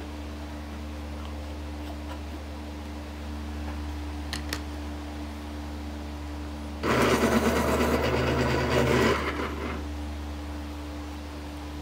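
A small motor runs briefly, about seven seconds in, for a little over two seconds, then dies away, over a steady low electrical hum.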